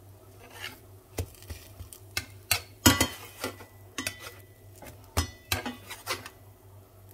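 Slotted spatula knocking and scraping against a frying pan while pancakes are worked and lifted: a string of sharp clacks, loudest about three seconds in and again just past five seconds.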